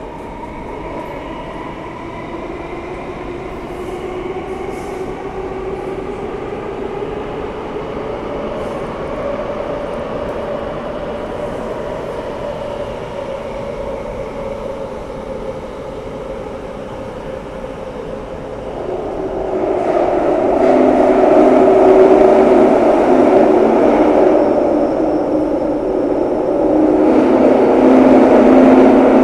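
Downtown Line metro train running through a tunnel, heard from inside the car. The electric motor whine rises in pitch over the first several seconds. About two-thirds of the way in, the running noise grows clearly louder, with a steady humming drone.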